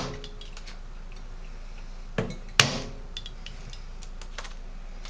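3/4-inch craft hole punch snapping through a plastic plate to cut out a shotshell top wad: two sharp clicks about half a second apart a little over two seconds in, with faint plastic ticks and rustling around them.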